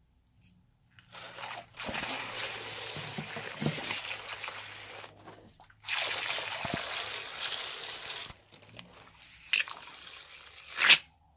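Liquid squirting out of a snipped latex balloon into foamy slime mix as the balloon is squeezed by hand: two long hissing gushes, then two sharp clicks near the end.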